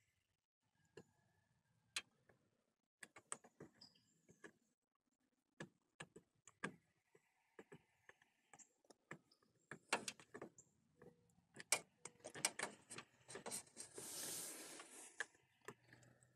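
Faint, scattered ticks and clicks of a hot plastic-welder tip tapping and scraping on a plastic radiator tank as a nylon zip tie is melted into the crack, with a short soft hiss late on.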